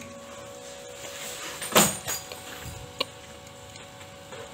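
Desktop computer running just after power-on: a steady electrical hum from the power supply and its fan. There is a loud handling bump about two seconds in and a sharp click about a second later.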